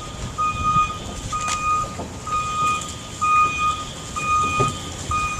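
A vehicle's reversing alarm beeping steadily, about one beep a second, over low outdoor rumble.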